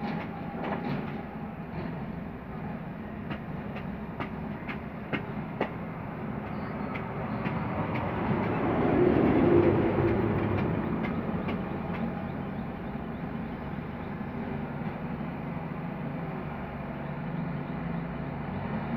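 Steady rumbling background noise with scattered sharp clicks, swelling louder for a couple of seconds about nine seconds in.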